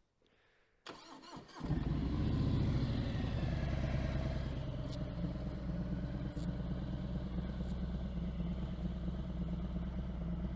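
Motorcycle engine starting about one and a half seconds in, then running at a steady idle.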